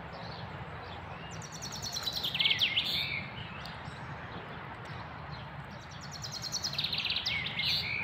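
A songbird singing in the woods: two song phrases, one about two seconds in and one near the end, each a quick run of high notes closing with a few lower slurred notes, over a faint steady background hiss.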